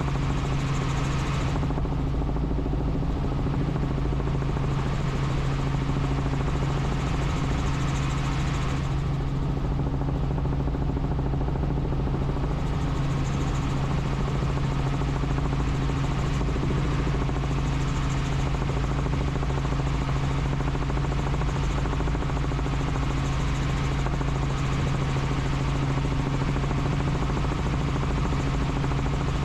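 Helicopter in steady flight: rotor and engine noise running evenly, with a steady low hum that does not change.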